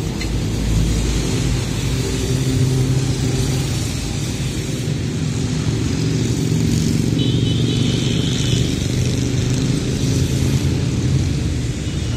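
Motor vehicle engines running at low speed, dominated by a steady low engine drone, as a motorcycle column passes through city traffic; a bus passes close by in the first second or so.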